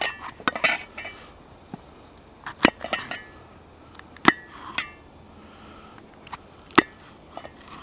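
A steel knife blade cutting a red bell pepper on a stainless steel plate, clinking against the plate. There are a handful of sharp, irregularly spaced metallic taps, each with a short ring.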